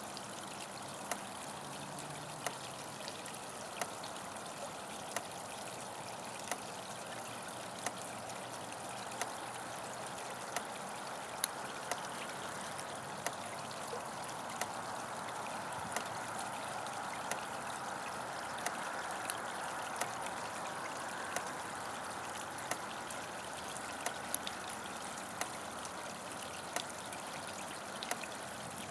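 Steady trickling water at a fish pond, with the sharp tick of an electric fence pulsing regularly about once every 1.3 seconds.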